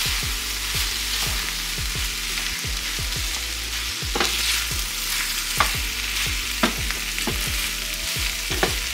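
Diced potatoes frying in a cast-iron skillet, sizzling steadily, while a wooden spoon stirs them, with scrapes and sharp knocks of the spoon against the pan now and then.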